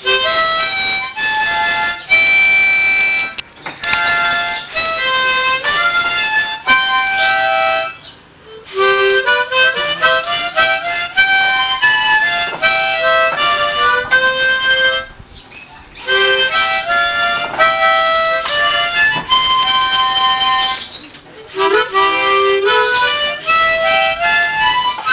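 Harmonica playing: chords and quick changes of note in phrases, broken by a few short pauses.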